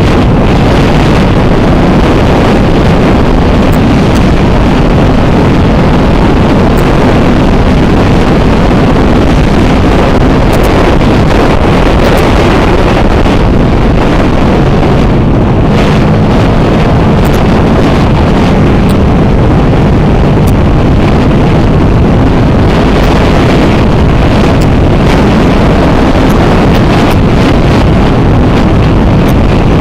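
Loud, steady wind buffeting on the camera microphone of a moving CFMoto 400NK motorcycle, with the bike's parallel-twin engine running faintly beneath it.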